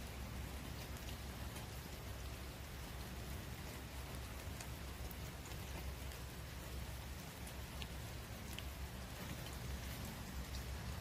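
Steady outdoor hiss with faint, scattered light ticks over a low rumble.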